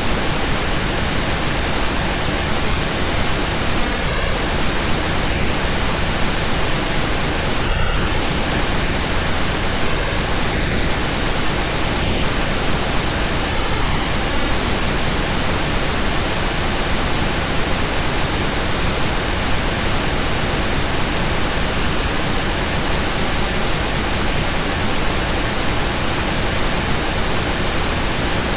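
Steady hiss of synthetic noise, like pink noise, used as a relaxation and sleep soundtrack, with short faint high tones coming and going every couple of seconds.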